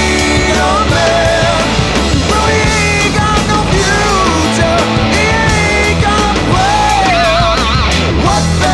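Heavy metal band recording: distorted electric lead guitar playing bent notes and, near the end, a wide vibrato, over pounding drums and bass.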